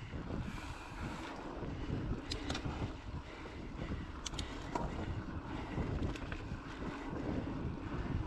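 Mountain bike rolling fast along a dirt singletrack: a steady, rough rumble of wind on the handlebar camera's microphone and tyres on dirt, with a few sharp clicks and rattles from the bike.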